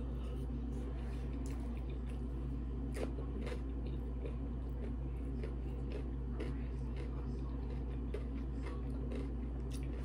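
Close-miked chewing and wet mouth sounds, a string of short irregular clicks, over a steady low hum.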